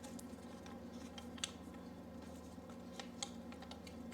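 A few faint clicks and taps from handling a cordless rotary hammer drill, about one and a half seconds in and twice around three seconds in, over a steady low hum.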